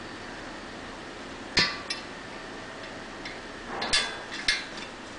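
Sharp metallic clinks and knocks of a steel bolt and center stand against a motorcycle frame's mounting plates as the bolt is fitted. Two knocks come about a second and a half in, then a cluster of clinks near four seconds in.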